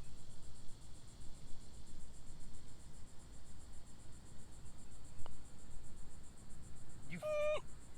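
Insects chirring steadily in a fast, even pulse. About five seconds in comes a single light click, like a putter striking a golf ball, and near the end a brief shout.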